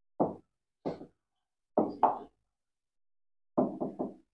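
Hard pen or fingertip taps against a touch-screen teaching board: single knocks about a second apart, then three quick taps near the end.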